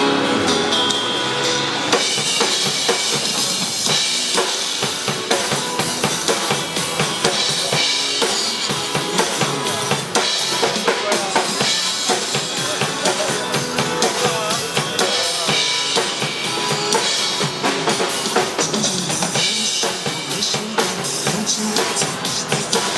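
Live band music with a drum kit keeping a steady beat, bass drum and snare to the fore.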